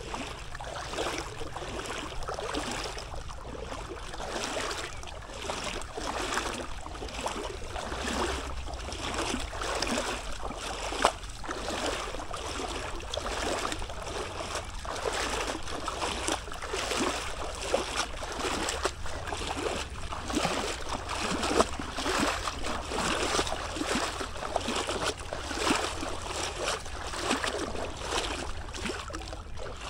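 Flooded river water rushing and splashing steadily, with a constant low rumble underneath.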